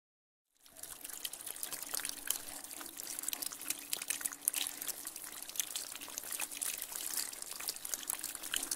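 Liquid dripping and spattering: a trickling hiss dotted with many small sharp drips and splashes, starting just under a second in.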